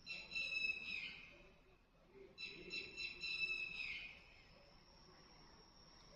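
A bird calling at night: two high, buzzy trilled calls, the first about a second long and the second longer, each dropping at the end, followed by a faint steady high tone.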